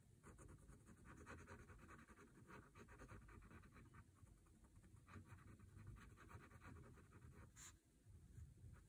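Micron PN pen nib scratching faintly on a paper tile in a run of short drawing strokes, with one brief click near the end.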